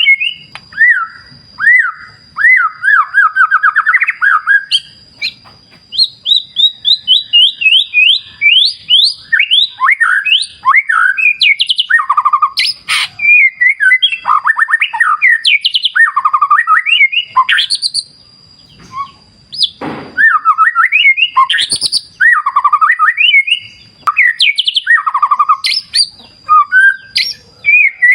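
White-rumped shama (murai batu) singing a long, varied song of rapid trills and rising and falling whistled phrases, with one short pause about two-thirds of the way through.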